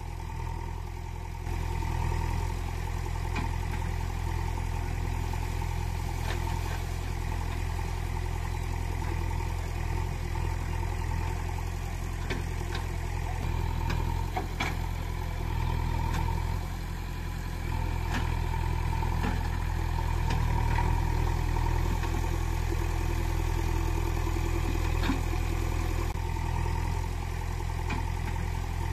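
Steady low engine drone of an idling heavy vehicle, with scattered light clicks.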